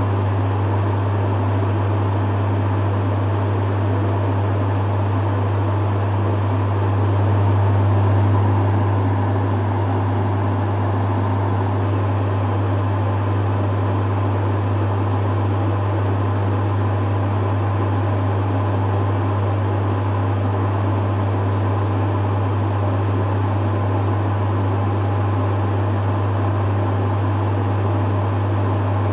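Dehumidifier running steadily: a strong, even low hum from its compressor under the whoosh of its fan, swelling slightly about eight seconds in.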